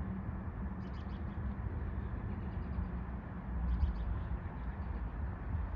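A steady low background rumble with a faint hum, broken by two brief faint high chirps, one about a second in and one near four seconds in.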